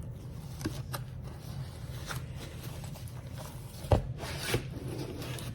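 Packaging rustling, with scattered small clicks and knocks as a parcel of fidget toys is handled and unpacked. The loudest knock comes about four seconds in.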